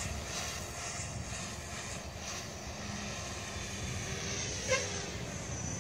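Warp 360 radio-controlled 3D helicopter, fitted with Pro 3D rotor blades under test, flying at a distance with a steady high rotor whine over wind noise on the microphone.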